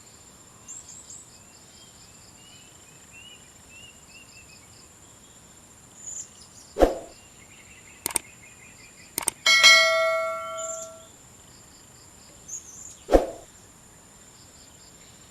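Insects trilling steadily with a few small bird chirps, broken by two sharp knocks and, about ten seconds in, a metallic clang that rings out like a bell for a second or so.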